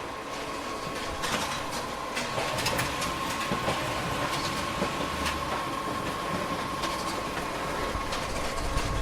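Photocopier running a booklet-making job: a steady mechanical hum with a constant whine and irregular clicks and clacks.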